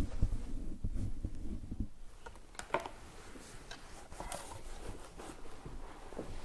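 Handling noise from an accordion and a hand-held microphone: soft low knocks and rubbing for the first two seconds, then scattered light clicks and ticks, with no notes sounding.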